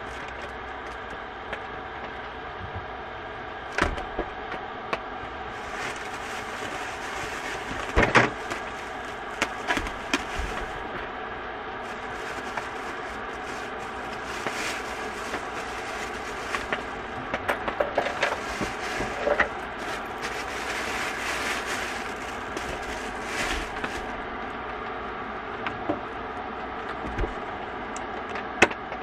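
Groceries being handled at a small fridge: plastic bags rustling, with scattered knocks and clunks of food and fridge parts, the loudest about eight seconds in and a sharp click near the end, over a steady low hum.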